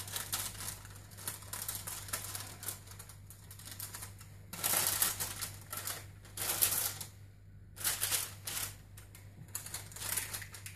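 Rapid clattering taps in several short bursts, the loudest a little under halfway through, as filled silicone soap molds are tapped and knocked on the worktable to settle the soap batter and knock out air pockets.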